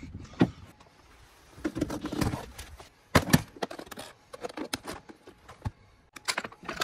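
Clicks and knocks of an aluminium microphone flight case being handled, its metal latches snapping open, with the sharpest clicks from about three seconds in.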